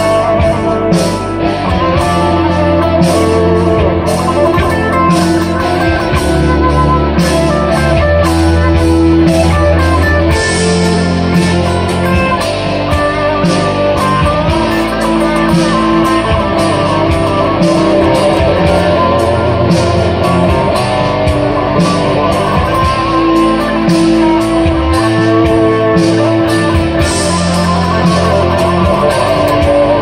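Electric guitar played through a Framus Dragon tube amplifier: an improvised passage of picked notes and chords over sustained low notes.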